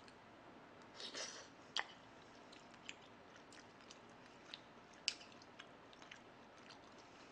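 Quiet chewing and mouth sounds of a person eating a mouthful of food, with a short burst of noise about a second in followed by a sharp click and a few smaller scattered clicks.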